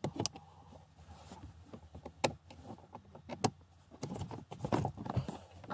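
Plastic lower dash panel of a 2008 Toyota Avalon being unclipped and pulled down: a few sharp clicks, then a close run of knocks and rattles in the last second and a half as the panel comes free.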